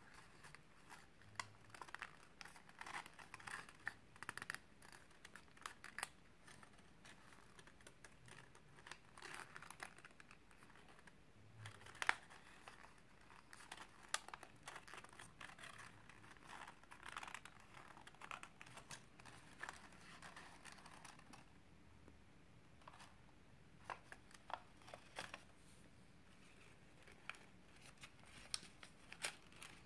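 Faint rustling and crinkling of a small sheet of origami paper being folded and creased by hand, with scattered short crackles and taps.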